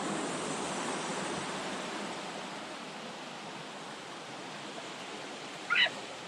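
Spruce Flats Falls, a mountain waterfall, rushing steadily. A brief high-pitched squeak cuts through near the end.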